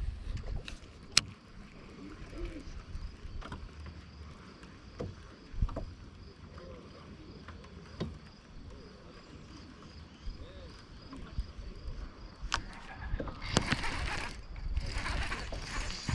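Scattered small knocks and clicks on a fishing boat, with a faint, evenly pulsing high tone underneath and a louder rushing noise near the end.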